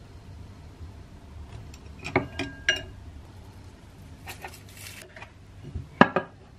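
Utensils clinking against a ceramic bowl as food is plated: a few sharp clinks about two seconds in, a brief rustle a couple of seconds later, then a louder pair of clinks near the end.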